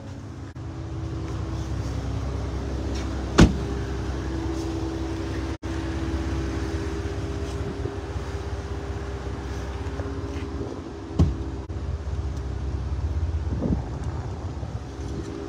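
Steady low hum of a vehicle running at idle, heard from inside the cab, with a few sharp knocks about three seconds in and twice more near the end.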